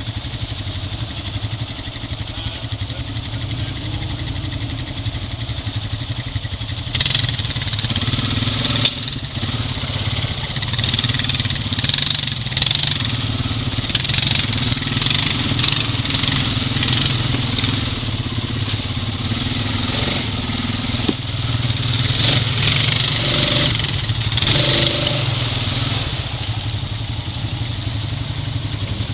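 Honda Rancher 420 ATV's single-cylinder engine running at trail speed through mud, rising and falling with the throttle. Rattles and knocks from the rough trail come in from about seven seconds in.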